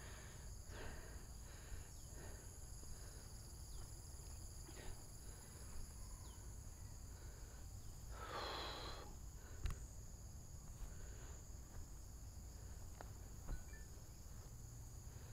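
Faint, steady high-pitched insect chorus, with a brief louder call about eight seconds in and a sharp click soon after.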